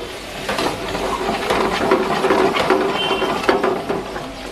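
Spinach purée sizzling in a hot steel pan, with the clinks and scrapes of a metal ladle stirring it against the pan; it grows louder about half a second in.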